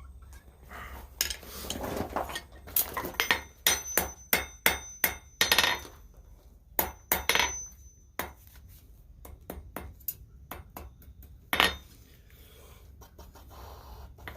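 Forging hammer blows on steel at the anvil, each with a short metallic ring: a quick run of strikes through the first half, then a few single strikes spaced apart.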